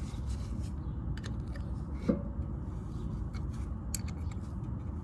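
Scattered small metallic clicks and scrapes of hand tools working on a rear brake caliper: a wrench on the parking-brake actuator bolt and a piston-pushing tool. A brief louder squeak comes about two seconds in, over a steady low rumble.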